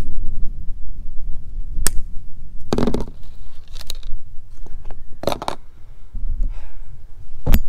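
Hands working the coax cable and plastic antenna fittings: several sharp, irregular clicks and scrapes over a steady low rumble.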